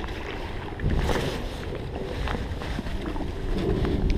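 Wind rumbling on the microphone, with sharp splashes from a hooked bass thrashing at the surface close to shore.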